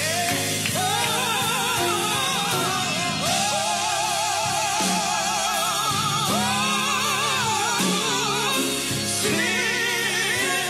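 Recorded gospel song: a singer holds long notes with wide vibrato over steady instrumental backing.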